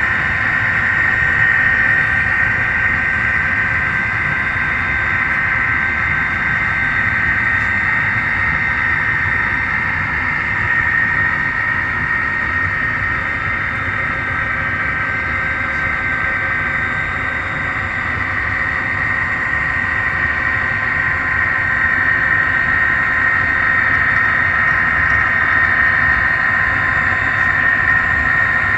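Model diesel locomotive running along the layout's track: a steady high motor whine over a continuous low rumble of wheels on rail.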